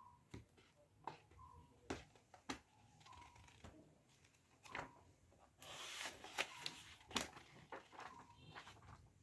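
Pages of a thick paperback book being flipped by hand: faint, scattered paper flicks and rustles, with a longer, denser riffle of pages from about five and a half to seven seconds in.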